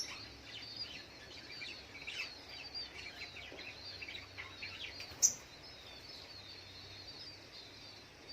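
Sogok ontong (brown-throated sunbird) chirping: a dense run of quick, high twittering notes, with one loud sharp call about five seconds in.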